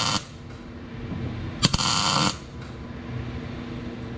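MIG welder tack-welding a steel anchor plate to a car's floor pan: a burst of the welding arc that cuts off just after the start, then a second burst of about two-thirds of a second near the middle.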